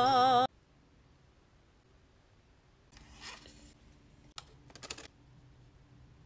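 Background music cuts off abruptly half a second in. About three seconds in comes a short breathy vocal sound, followed by a few sharp clicks and taps from handling a foam cup of ranch dip.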